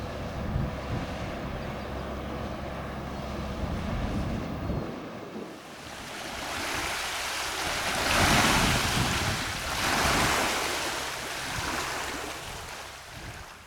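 A low engine drone from a passing ship. From about halfway a rushing of wind and water swells up twice, then fades.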